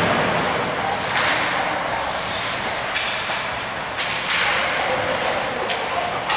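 Ice hockey play: skate blades scraping and carving the ice, with several sharp clacks of sticks hitting the puck and the ice.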